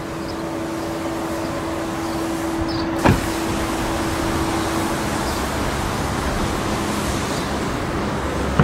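A car door shutting with a single sharp thud about three seconds in, over a steady hum and even hiss.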